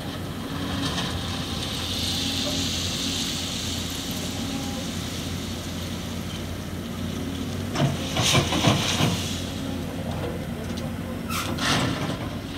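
Rail work-train machinery at a side-tipping ballast wagon: a steady engine hum, a hiss for a few seconds near the start, and a short cluster of metallic knocks and clanks about eight seconds in, with another knock near the end.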